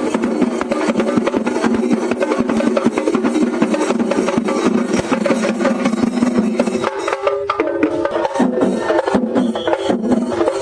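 Festival percussion music: rapid, dense drum strokes over steady held notes, which break up about two-thirds of the way through.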